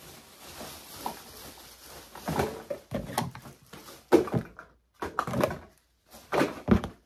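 Empty plastic body-care bottles being rummaged through and knocked together, with rustling and a series of dull knocks.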